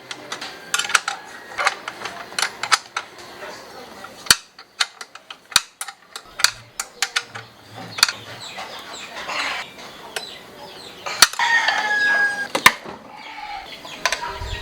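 Scattered sharp clicks and knocks from hand work on a scooter's brake parts. About eleven seconds in, a rooster crows once, a call of about a second and a half.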